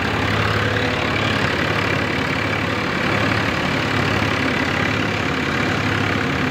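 Diesel tractor engine running steadily under load from the driver's seat, powering a straw reaper through wheat stubble, the reaper's machinery running along with it as one steady, even hum.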